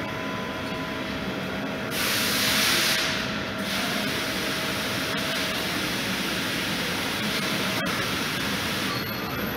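Steady hum of a CNC lathe and robot loading cell, broken about two seconds in by a loud hiss of compressed air lasting about a second and a half, with a single sharp click near the end.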